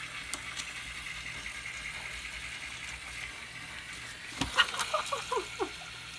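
Battery-powered walking plush toy dog's small motor and gears running steadily with a low rattling whir as it walks. About four and a half seconds in there is a thump, followed by a quick run of short chirping squeaks.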